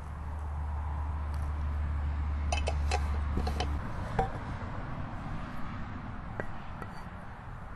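Boiling water pouring from a stainless steel thermos into a ceramic mug of oak bark, a rushing splash that swells over the first three or four seconds with a few small clicks. Then a sharp knock a little after four seconds and a couple of light taps about six and a half seconds in as a round wooden lid is set on the mug.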